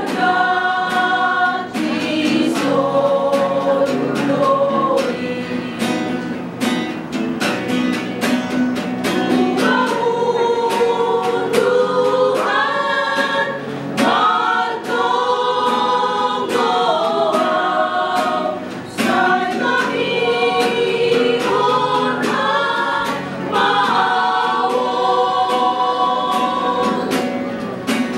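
Women's vocal group singing a Simalungun Batak hymn in parts, the voices holding notes together and moving to new chords every few seconds.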